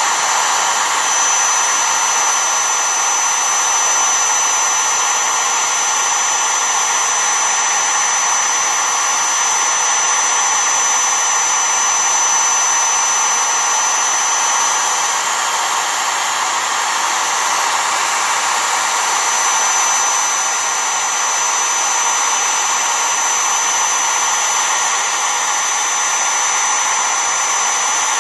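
Trim router on a Mostly Printed CNC running at speed while its bit cuts into foam board: a steady high-pitched motor whine with a thin high whistle over it.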